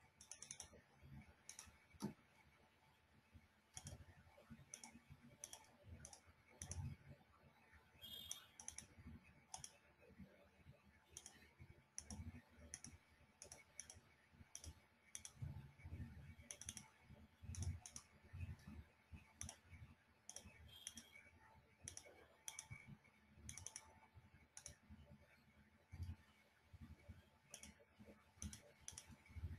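Faint, irregular clicking of a computer keyboard and mouse, about one or two clicks a second, each with a soft low thump.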